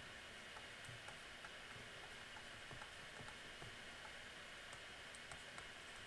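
Faint, light ticks of a stylus tapping on a tablet screen during handwriting, scattered and irregular, over a low steady hiss.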